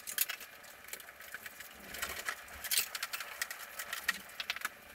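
Hands handling installation materials, most likely the interconnect wire being fed through the wall: a string of irregular clicks, taps and rustles, with a few louder ones near the middle.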